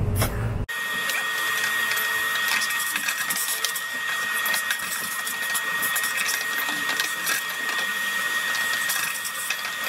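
Vacuum cleaner running with a steady high-pitched motor whine as its hose sucks dirt out of a truck's plastic air filter housing, with scattered light clicks. It starts abruptly just under a second in.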